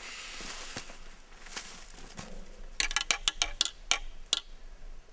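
Faint rustling, then from a little past halfway a quick, irregular run of about nine sharp clicks or clacks in under two seconds.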